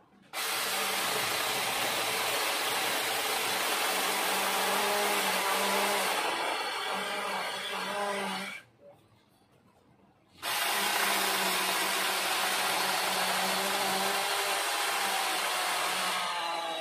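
Cordless battery-powered saw cutting through a tree trunk. It runs in two long bursts, stopping for about two seconds partway through and then starting again.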